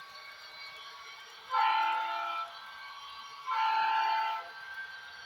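Athearn Genesis SD70 model locomotive's Tsunami2 DCC sound decoder sounding its diesel horn twice, each blast about a second long, over the fainter steady sound of its diesel engine.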